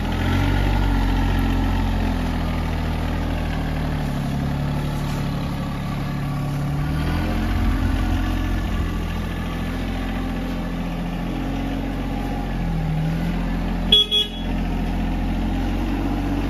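Small RK compact tractor's engine running as it drives across the yard, its speed rising and falling several times. A brief, loud sharp sound near the end.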